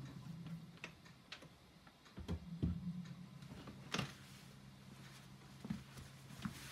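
Handling noise from an electric guitar being lifted off the lap and leaned against furniture, with a person rising from a chair: a string of scattered knocks and clicks, the loudest a little past two seconds and at about four seconds in. A steady low hum runs underneath.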